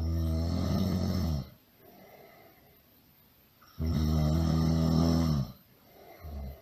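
Loud snoring: two long pitched snores, each about a second and a half, a few seconds apart, then a short, quieter snore near the end.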